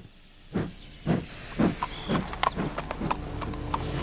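Steam locomotive's exhaust chuffing, the beats coming faster as it starts away, with a few light metallic clicks in the second half.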